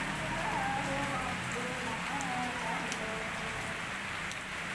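Steady rain falling on potted plants and a wet concrete yard: an even hiss with scattered sharp drip ticks.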